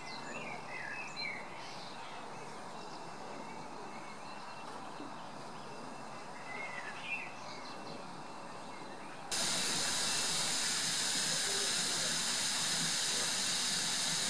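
Birds chirping now and then over quiet ambience, then, about nine seconds in, a sudden switch to a loud, steady hiss of steam escaping from a steam locomotive standing at the platform.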